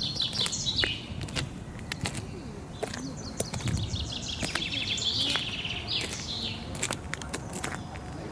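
A songbird singing trilled phrases that fall in pitch, one right at the start and a longer one from about three to five seconds in, over a low steady rumble.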